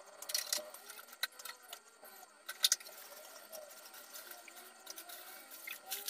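Scattered light clinks and knocks of household items being handled, the sharpest a quick pair about two and a half seconds in, over faint running water.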